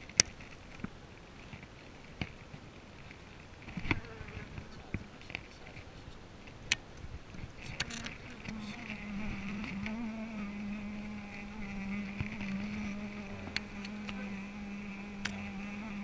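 Honeybees buzzing around an open hive, with a steady close buzz setting in about halfway through and holding on. Scattered sharp clicks and knocks as the wooden frames are worked with a hive tool.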